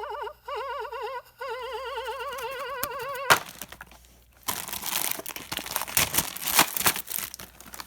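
A wavering, warbling tone for about three seconds, cut off by a sharp click, then crinkling and crackling of a plastic blind-bag wrapper being torn open.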